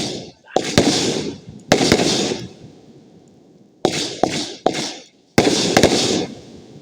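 Fireworks going off: a string of sharp bangs, each trailing off in crackle, with a lull of about a second in the middle before another cluster.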